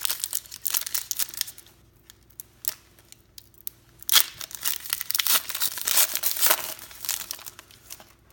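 A 2015 Gridiron Kings football card pack being torn open by hand, its wrapper crinkling in irregular bursts, loudest from about four to seven seconds in.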